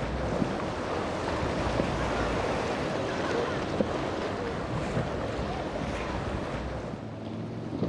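Mako center-console boat with a Yamaha outboard running through rough inlet chop: a steady rush of water and spray off the hull with a few sharp slaps, under heavy wind rumble on the microphone.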